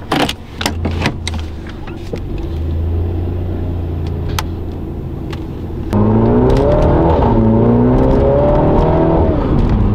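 A Mini hatchback's engine heard from inside the cabin, with a few clicks as the gear selector is moved. The engine runs low and steady, then about six seconds in it is revved hard as the car accelerates, its pitch climbing and then falling away near the end.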